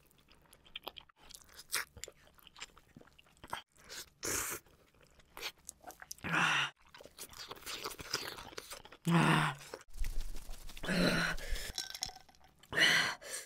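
Close-miked chewing of spicy ramyeon noodles, with many small wet mouth clicks. Four heavy breathy exhales are spaced through it as the eater reacts to the chilli heat.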